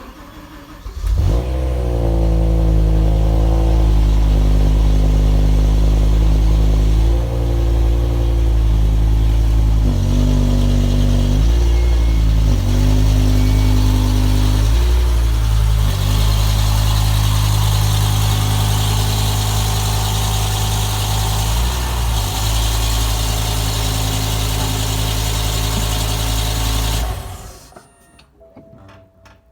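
BMW M5 E60's 5.0-litre V10 starting up about a second in, flaring and settling to idle, with a few short rises in revs. It then idles steadily and is switched off near the end.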